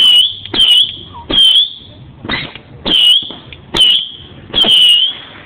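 A firework firing a series of shrill whistling shots, about one every second at slightly uneven spacing, each a short high whistle that dips a little in pitch.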